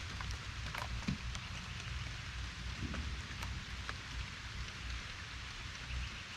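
Rain falling: a steady hiss with scattered short drop ticks, over a low rumble.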